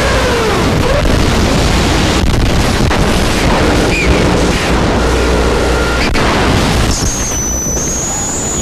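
Harsh noise music from cut-up modular electronics: a loud, dense wall of distorted noise with a few sliding tones near the start and abrupt cuts. About seven seconds in, the low end thins and a high steady whine comes in.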